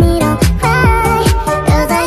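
Pop or electronic dance music with a steady kick-drum beat of about two and a half beats a second and a sung melody.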